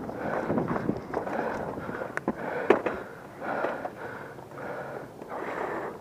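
A person's heavy breathing, in noisy swells about once a second, with two sharp clicks a little after two seconds in.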